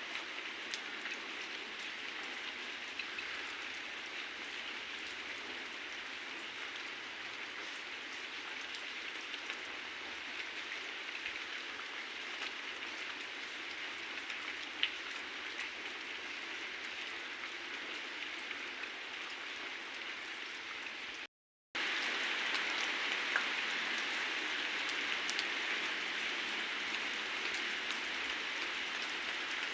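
Heavy rain falling steadily, an even hiss with scattered sharp drop ticks. The sound cuts out for a split second about two-thirds of the way through and comes back a little louder.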